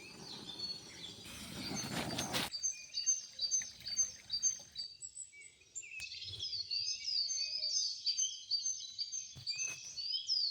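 Birds chirping in a quick run of short, repeated, hooked calls that grow busier about halfway through. There is a rushing noise during the first couple of seconds.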